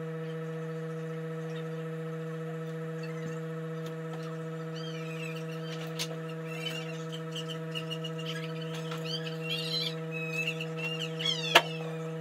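A steady low hum with several fainter overtones. From about halfway through, quick high chirps come and go, and a single sharp click stands out near the end.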